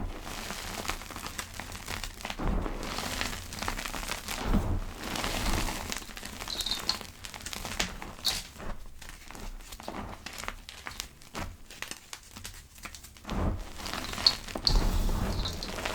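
Fingers pressing and crushing soft powder, gym chalk or cornstarch, making dense soft crackles and crunches. A few short high squeaks come through, and the crackling thins out for a while in the middle.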